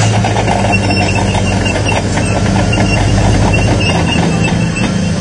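Tracked armoured vehicle on the move: its engine runs steadily under the clatter of its steel tracks.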